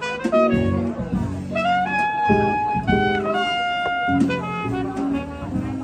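Jazzy background music, a horn melody of held notes over shifting low notes.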